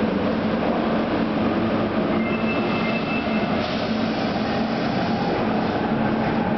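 Osaka Municipal Subway 70 series linear-motor train at the underground platform, a steady running noise with a low hum throughout. A brief thin high squeal comes a couple of seconds in.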